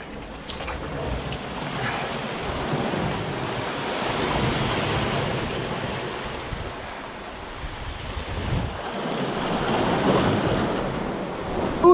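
Sea surf washing against a rocky shore, swelling twice, with wind buffeting the microphone.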